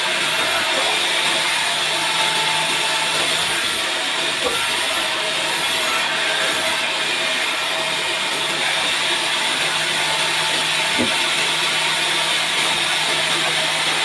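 Large vertical band sawmill running and cutting lengthwise through a bark-covered timber block: a steady hiss over a steady low hum.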